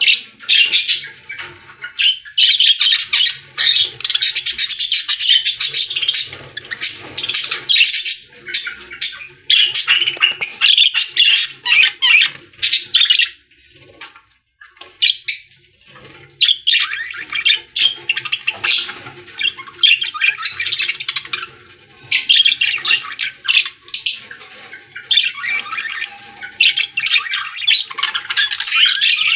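Baby birds calling, a dense, high-pitched chorus of calls that comes in long bouts, with a pause of about two seconds midway.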